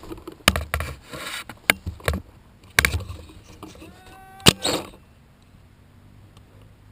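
Paintball marker shots: about six sharp cracks at irregular intervals, the loudest about four and a half seconds in, with a shout just around it.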